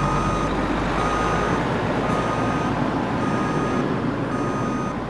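Fire truck's backup alarm beeping about once a second, each beep about half a second long, over the steady running of the truck's engine as it maneuvers at the firehouse.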